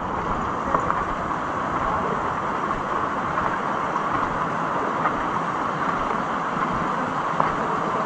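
Steady rushing noise of falling water from the waterfall and river below, with a few faint clicks of footsteps on the path.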